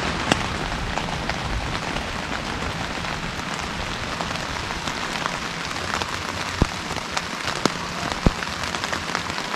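Steady rain falling on a tent, heard from inside, with scattered louder drops striking the fabric.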